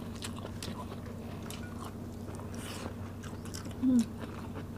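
Close-up eating sounds: chewing with scattered wet mouth clicks as food is eaten by hand, and a short voiced 'mm' a little under four seconds in.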